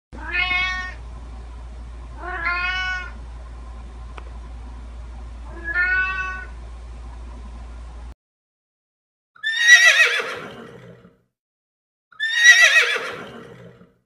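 A Doberman gives three short, pitched cries a couple of seconds apart, over a low steady hum. After a cut, a domestic cat meows loudly twice, each meow long and falling in pitch.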